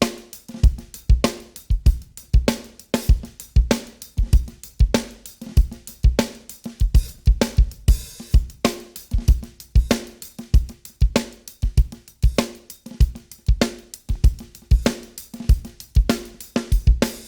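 A recorded rock drum kit playing a steady beat (kick, snare, hi-hat and cymbals), run through the TK Audio Transformer saturation box with its second stage engaged, adding even harmonics: a little more aggressive and crunchy.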